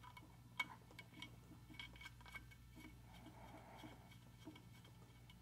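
Faint small clicks and light rattling of a cable connector being plugged into the 2-pin power socket of a motorised camera head and screwed on, over near silence.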